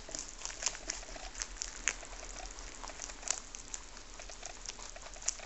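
Two lop-eared rabbits crunching and tearing a crinkly cabbage leaf, a fast, irregular patter of chewing clicks with a few louder snaps as bits are bitten off.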